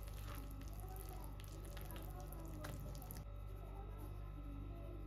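Wire whisk stirring a wet, sticky yeast dough in a glass bowl: soft squelching with a few light clicks of the wires against the bowl, over a low steady hum; the sound changes and goes quieter after about three seconds.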